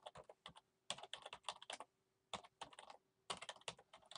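Faint typing on a computer keyboard: four quick runs of keystrokes with short pauses between them.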